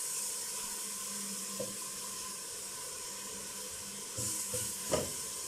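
Grated onion sizzling steadily as it fries in ghee in a stainless steel pot, being softened. A spoon knocks against the pot near the end.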